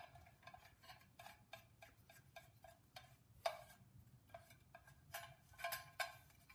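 Faint metallic ticking and clicking as ARP flex plate bolts and the small backing plate are fitted by hand against the steel flex plate, about three small ticks a second with a few louder knocks.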